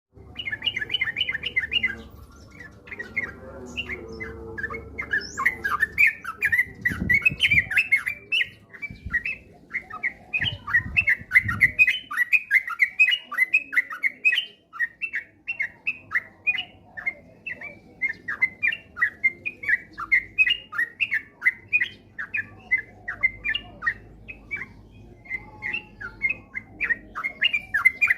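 Yellow-vented bulbul (trucukan) singing a fast, unbroken run of short chirping notes, several a second: the rapid 'ropel' song. Low rumbling lies under it in the first half.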